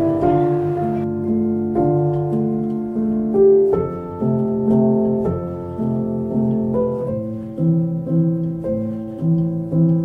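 Soundtrack music: piano playing slow, sustained notes in a gentle melody.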